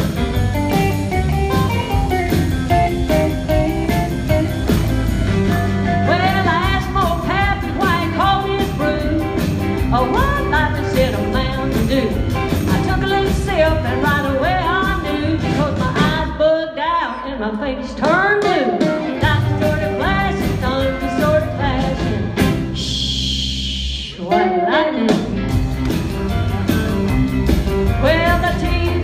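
Live band of electric guitars, bass guitar, drums and keyboards playing an instrumental break, with a lead line of bending notes over the band. The band stops for a moment twice, about halfway through and again a few seconds later.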